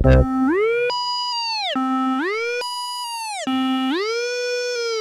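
Synthesizer tone in a break of an electronic track: one bright note that slides up an octave, holds about a second, and slides back down, three times over, like a slow siren.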